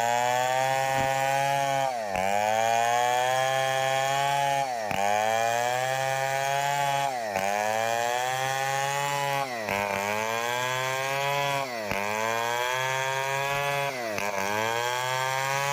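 Stihl 070 chainsaw, a big single-cylinder two-stroke, running hard while sawing timber. Its engine pitch dips sharply and climbs back about every two and a half seconds as the load in the cut comes and goes.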